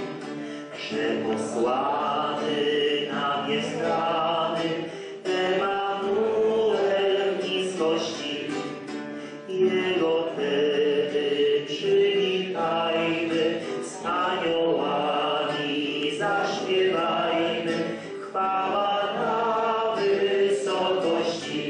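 A group of people singing together, many voices carrying one melody with no instruments standing out.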